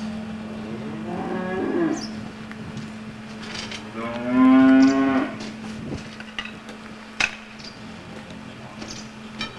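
Cattle mooing: a fainter, falling moo about a second in, then a louder one of about a second near the middle. A steady hum runs underneath, and a sharp click comes a little after the middle.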